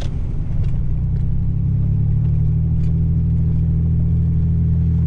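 Pickup truck's engine and drivetrain heard from inside the cab, a steady low drone at a constant pace that evens out about two seconds in.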